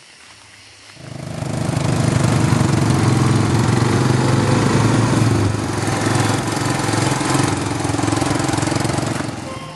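Small engine of a ride-on lawn tractor running steadily close by. It comes in about a second in and eases off near the end.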